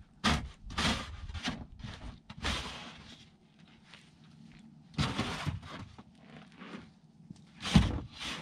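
Snow shovel scraping snow off wooden porch boards in a series of short strokes, with a pause in the middle. Near the end the blade knocks hard against the deck.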